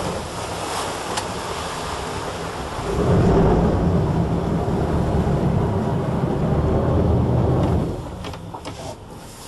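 Motorboat engine and rushing water as the boat comes off the plane and stops. About three seconds in, a low, steady engine drone grows louder for some five seconds, then dies away near the end.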